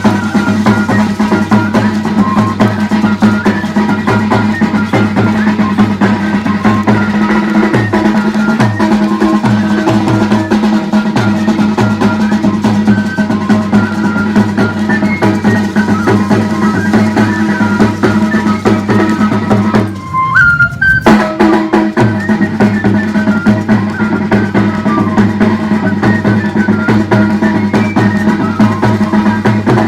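Traditional dance music with steady drumming and sustained melodic tones playing continuously. For about a second, roughly two-thirds of the way through, the higher parts drop out and only a low sound remains.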